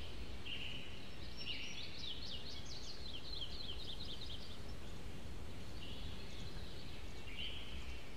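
Songbirds chirping and twittering, with quick runs of high chirps in the first half and shorter, lower warbles near the start and end, over a steady low background hum.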